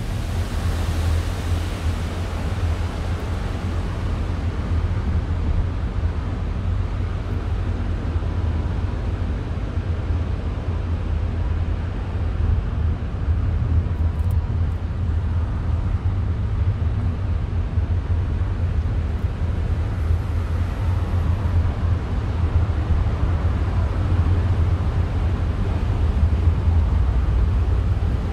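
Steady low rumbling noise with a fainter even hiss above it.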